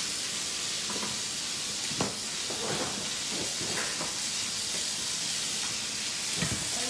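Steady hiss of a handheld butane torch flame over chicken-skin satay sizzling on a hot grill pan, with a couple of sharp pops of fat about two seconds in and near the end.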